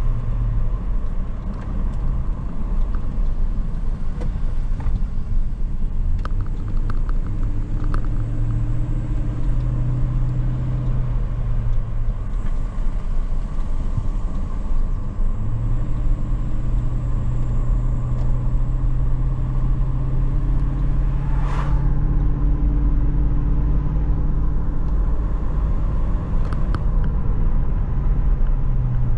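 A car driving, with steady engine and road rumble and the engine note rising and falling. There is a single sharp click about two-thirds of the way through.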